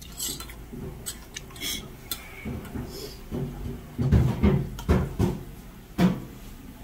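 Metal spoon and chopsticks clinking and scraping against a stainless steel bowl as rice is stirred into doenjang stew. Light clicks at first, then a few louder knocks about four to six seconds in.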